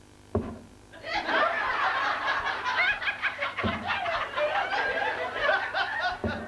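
Audience laughing and chuckling together, starting about a second in and carrying on. Three dull thumps, about a second in, in the middle and near the end, from a handheld microphone being tapped on volunteers' heads.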